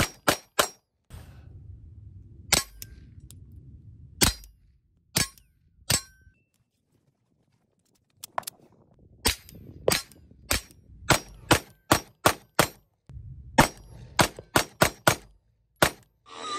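9mm pistols firing Black Hills Honey Badger rounds: four quick shots at the start, then single shots a second or so apart, a pause of about two seconds, then steady strings of two to three shots a second.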